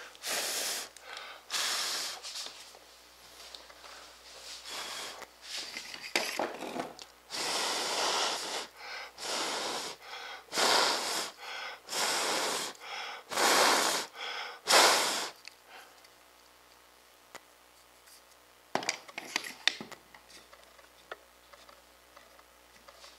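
A series of short hissing puffs of air, about a dozen over some fifteen seconds, followed by a few faint clicks.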